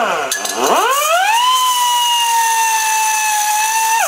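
Pneumatic die grinder with a small diamond cutoff disc spinning up to a high, steady whine as it cuts into a metal tube held in a vise. The pitch sags slightly through the cut, then drops away as the tool is let off at the end.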